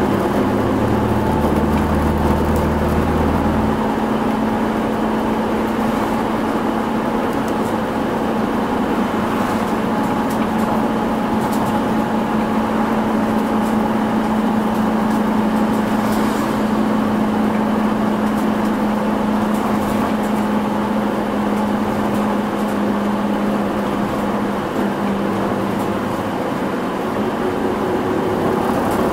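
Interior running noise of a Hino Rainbow midsize non-step city bus under way: its diesel engine holds a steady note over road and wind noise, with the windows open for ventilation. The engine note changes about 25 seconds in.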